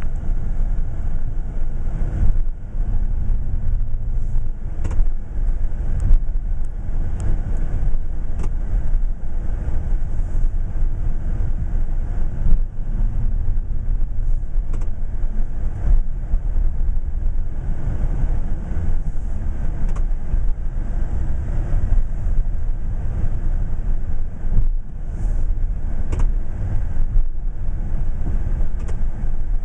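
2008 Chevy one-ton pickup's 6.6-litre Duramax V8 turbodiesel running steadily under load while plowing snow, a dense low rumble with scattered short knocks.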